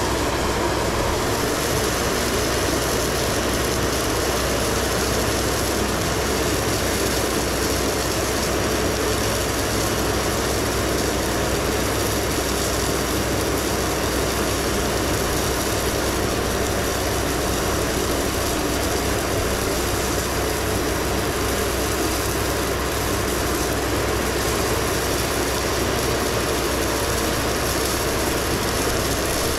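Stone slinger truck running steadily, its conveyor throwing a continuous stream of 3/4-inch crushed stone onto a gravel trail.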